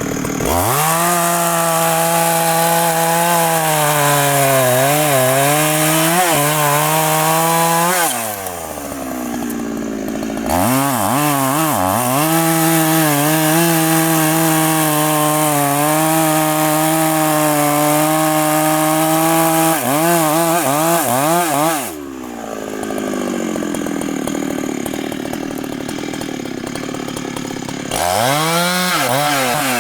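Large Husqvarna professional two-stroke chainsaw cutting wood at full throttle, its pitch wavering as the cut loads it. It drops back to a lower idle twice and revs up again each time.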